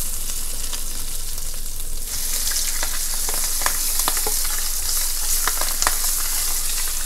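A whole yellowtail snapper sizzling in hot melted butter in a frying pan: a steady frying hiss with a few sharp pops midway.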